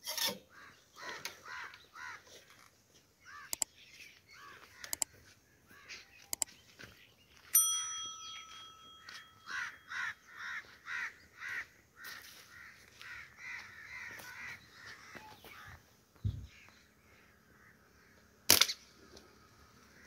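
Crows cawing over and over, with a few sharp clicks, the loudest near the end. About a third of the way in, a ringing tone holds for about a second and a half.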